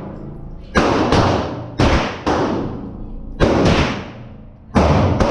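Gunshots from a compact carbine in an indoor range, about eight shots in quick uneven pairs. Each crack is followed by a short echoing tail off the range walls.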